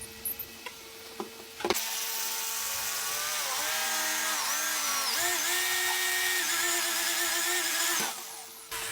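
A power tool's electric motor switches on, runs with a whining pitch that dips a few times as it takes load and then holds steady, and stops about six seconds later.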